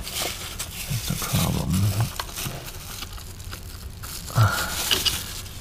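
Handling noises of plastic parts and wiring in a car's engine bay, rustling and scraping, with a few dull bumps; the sharpest comes about four and a half seconds in.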